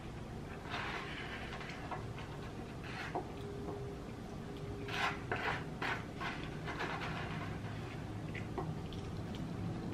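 Close-up eating of black bean instant noodles: short bursts of slurping and chewing as noodles are pulled from the bowl with chopsticks. A faint steady whine lasts about a second and a half near the middle.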